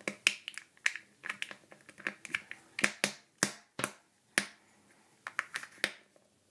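Irregular sharp clicks and taps of fingers and fingernails picking at a taped plastic capsule close to the microphone, stopping about six seconds in.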